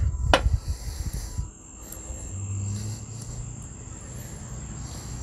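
A glass pizza-sauce jar set down on the tabletop with a single sharp knock, followed by a low, uneven rumble in the background.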